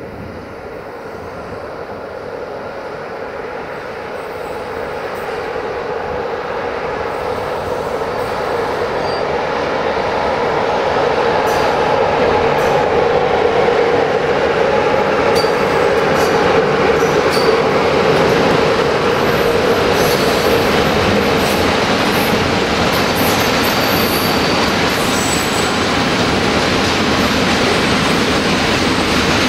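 Freight train rolling past on the rails behind a 060-EA electric locomotive: a steady rumble of wagon wheels that grows louder over the first ten seconds or so, then holds, with faint brief wheel squeals and clicks of wheels over rail joints.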